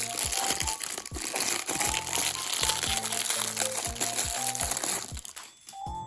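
Plastic packaging crinkling and crackling as it is handled, for about five seconds, then stopping, over light background music.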